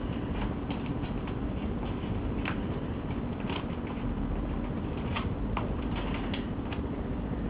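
Kittens at play: scattered, irregular light taps and scuffles of small paws and claws, over a steady low background hum.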